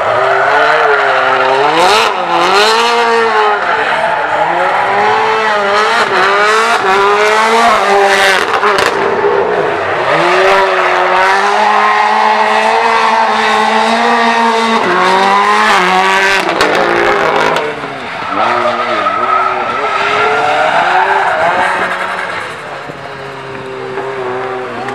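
Autocross car's engine revving hard, its pitch rising and falling again and again as it accelerates and brakes between the cones, with tyre squeal as it slides through the turns. It drops off briefly about eighteen seconds in and again near the end.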